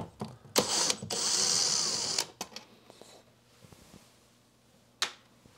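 Cordless drill-driver running for about a second and a half as it backs out a screw holding the ventilator's heat exchanger in place, followed by faint handling noises and one sharp click near the end.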